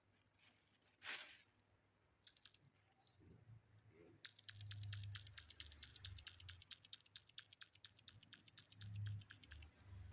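Faint, fast run of light, even clicks, about eight a second, through the second half, after a short rush of noise about a second in.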